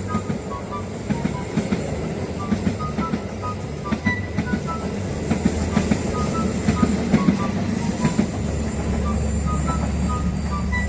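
A train running on the rails, with a steady low rumble and irregular clacking of wheels over the track; the rumble grows heavier about eight seconds in.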